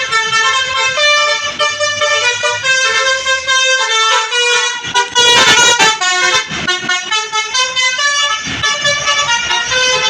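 Bus telolet horn playing a melody of several horn notes, one after another, changing pitch every fraction of a second. A harsh noisy burst cuts in about five seconds in.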